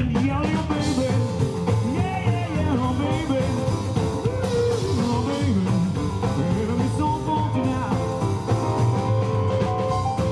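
Live rock and roll band, with piano, upright double bass and drum kit, playing an up-tempo number, with a voice bending and sliding over it for most of the stretch. Near the end a quick repeated high figure takes over on top.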